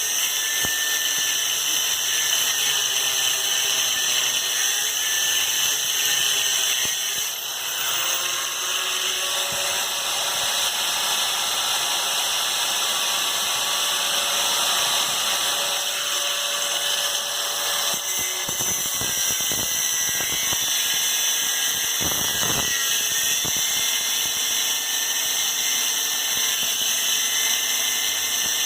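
A power tool running steadily on metal, with a high-pitched whine and a brief drop about seven seconds in. A few knocks come later on.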